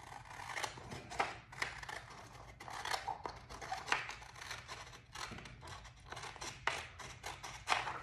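Scissors cutting through a sheet of printer paper: a quick, uneven run of short snips as the blades work along a line.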